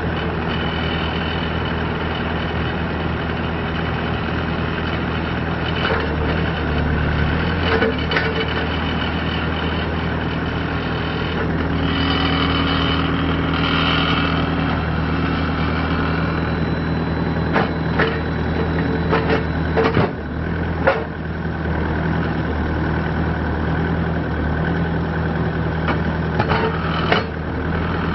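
2006 Bobcat T300 track loader's diesel engine running steadily, with a higher steady tone in the middle and a handful of sharp clanks toward the end.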